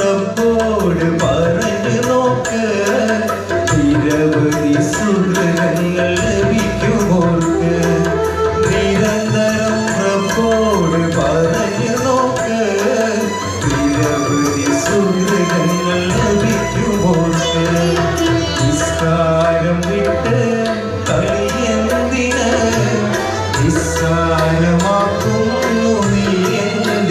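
Male vocalist singing a Malayalam mappila song into a microphone over recorded backing music led by tabla, heard through a PA system.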